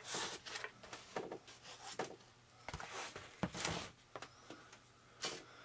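Hands handling a taped foam RC flying wing: short, irregular rustling and scraping of foam and tape, with a couple of light clicks about three seconds in.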